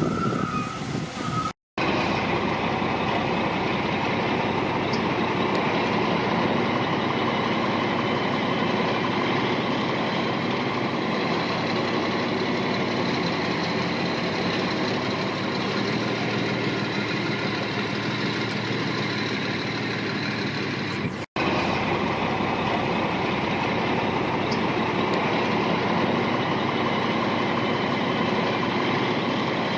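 Diesel engine of heavy earthmoving machinery running steadily under work. The sound drops out for a split second twice, about two seconds in and about twenty-one seconds in.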